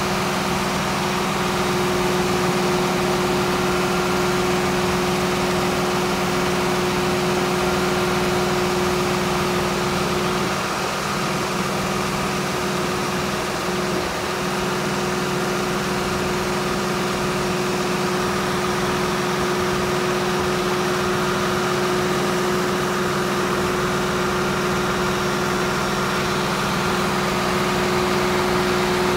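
FMC LMD2000 deicer truck running steadily with its boom raised: a constant engine drone with a steady mid-pitched tone on top, dipping slightly for a few seconds about a third of the way in.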